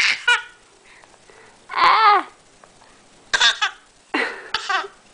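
A baby making short voiced fake coughs, three times, with a drawn-out rising-and-falling 'ah' about two seconds in.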